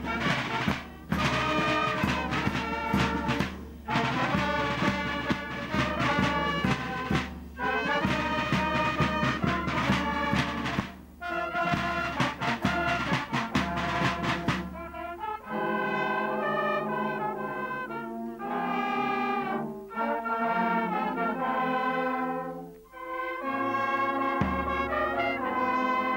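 Brass band playing: fast, busy passages over a steady bass, then an abrupt change about fifteen seconds in to slower, held chords.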